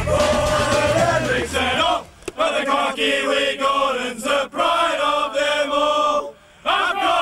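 A group of men singing a team song together in unison, arms linked in a huddle, in phrases broken by short pauses about two seconds in and again near the end.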